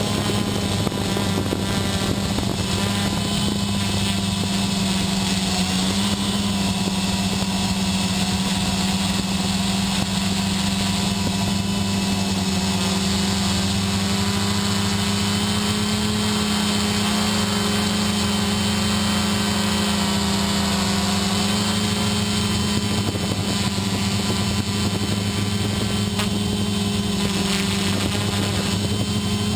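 XP2 quadcopter's electric motors and propellers running in flight, heard from on board: a steady buzzing hum whose pitch wavers slightly as the craft manoeuvres.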